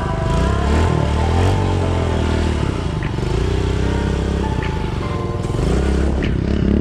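Kawasaki KLX110 pit bike's small single-cylinder four-stroke engine running as it is ridden, the revs rising and falling with the throttle. Background music plays along with it.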